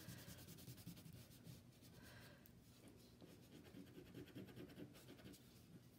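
Faint scratching of a wax crayon rubbed back and forth on paper in repeated strokes, filling in a shape at medium pressure.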